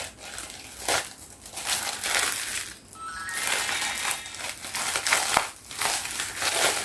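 Plastic parcel packaging being torn open by hand and crinkled, in irregular rustles.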